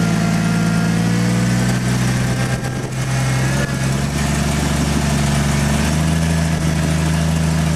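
Rock-crawling 4x4's engine running steadily at low revs, its pitch shifting slightly a few times as the driver works the throttle.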